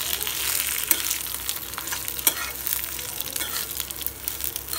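Ivy gourd pieces and a tempering of peanuts and green chillies sizzling in oil in a kadai while a metal spoon stirs them, scraping and clicking against the pan now and then.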